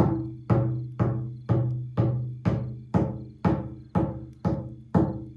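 Lakota Baby, a small single-headed hide frame drum laced in a star on the back, beaten in a steady rhythm of about two strokes a second. Each stroke rings with a low tone that fades before the next.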